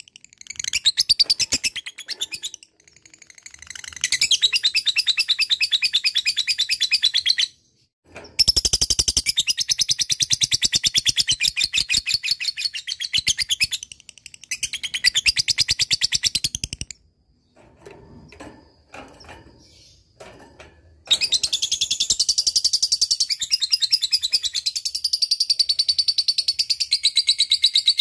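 Lovebird singing its 'ngekek' song: long runs of rapid, chattering high-pitched notes, several seconds each, broken by short pauses, five runs in all.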